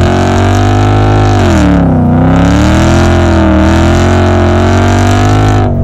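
Ford Mustang 5.0 GT's V8 engine, breathing through a Borla ATAK exhaust, running hard at high revs. The pitch sags about two seconds in, climbs back and holds, then cuts off abruptly near the end.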